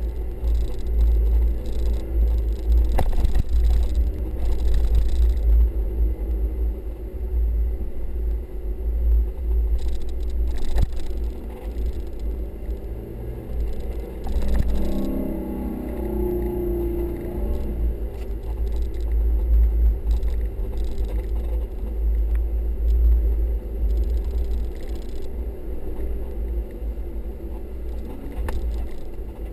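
A 4x4 driving over soft sand dunes, heard from inside the cabin: a steady low rumble of engine and tyres, with scattered knocks and rattles from the body. About halfway through the engine note swells for a few seconds.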